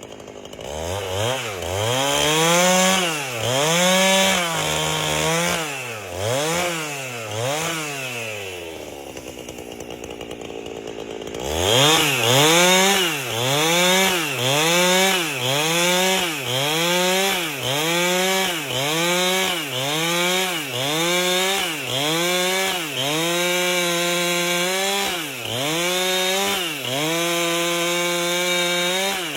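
Two-stroke chainsaw with a 30-inch bar ripping an albasia log lengthwise, its engine revving up and dropping back over and over. About eight seconds in it falls to a lower, steady speed for a few seconds, then picks up again and revs up and down about once a second.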